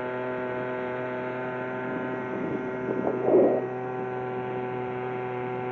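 Small boat's motor running at a steady speed, a constant even-pitched hum, with a brief rustle about three seconds in.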